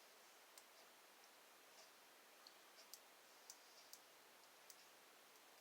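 Faint, scattered small clicks of a guitar-string wire being worked inside a Brinks three-wheel combination padlock, against near silence.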